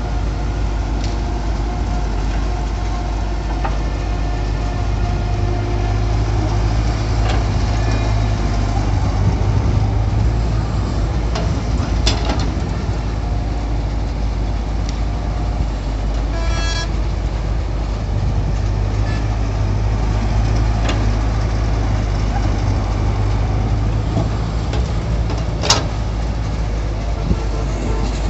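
Cat crawler excavator's diesel engine running steadily as it digs sand, with a couple of sharp metallic clanks. A brief horn-like toot sounds about midway.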